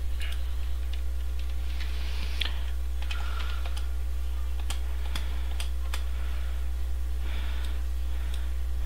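Computer keyboard keys and mouse buttons clicking now and then in scattered, irregular taps, over a steady low electrical hum.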